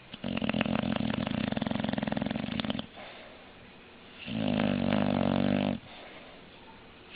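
English bulldog snoring: two loud snores, the first about two and a half seconds long with a rapid rattling flutter, the second, about four seconds in, shorter and with a steadier pitched hum.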